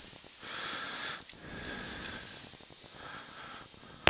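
A person breathing out, a soft hiss of air, with a single sharp click at the very end.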